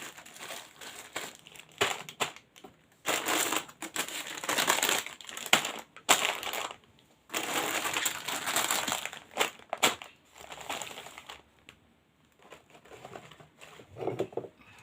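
Shopping bags and snack packets crinkling and rustling as they are handled and unpacked, in irregular stretches with a few sharp clicks and taps.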